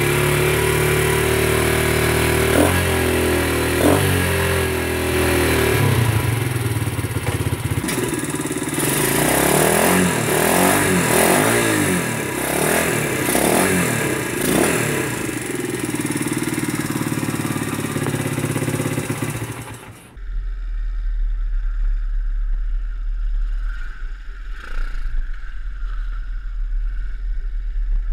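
125cc Welsh Pit Bike single-cylinder engine running through a fully silenced road-legal exhaust (a cut-down Shineray can wrapped in fibreglass), idling and revved in several throttle blips; the exhaust note is pretty quiet. About twenty seconds in it changes to the bike being ridden, with a heavy rumble of wind on the microphone over the engine.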